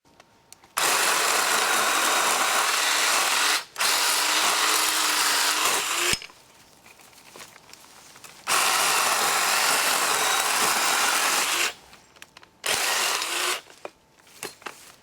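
Black & Decker Alligator battery-powered lopper chainsaw running in four bursts of a few seconds each, with short pauses between them.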